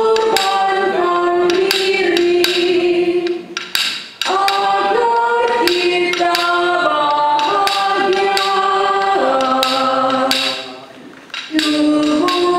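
Church choir singing a hymn in long held notes, with short breaks between phrases about four seconds in and again near the end.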